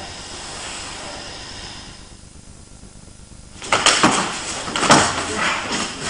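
Thuds and scuffling of bodies and feet on a training mat during a grappling exchange: a faint hiss at first, then a run of sharp thumps starting abruptly about two-thirds of the way in.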